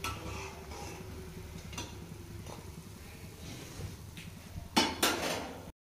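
Crisp fried onion pakodas being handled in a metal bowl: light rustles and clinks against the bowl, then two sharp, louder knocks close together about five seconds in. A steady low hum runs underneath.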